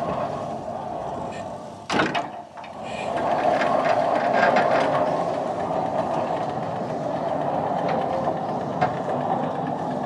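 Wood-Mizer LT15 Go portable sawmill running, its saw head traveling along the track, a steady mechanical running noise with a sharp knock about two seconds in.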